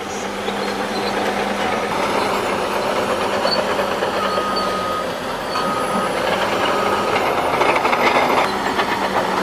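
Heavy earthmoving machinery running steadily, with a reversing alarm beeping three times about halfway through.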